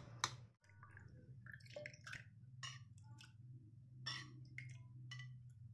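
Metal knife and fork clicking and scraping on a ceramic plate as soft, peeled boiled tomatoes are lifted off, in a string of faint, irregular taps with a little wet squish. A faint steady low hum runs underneath.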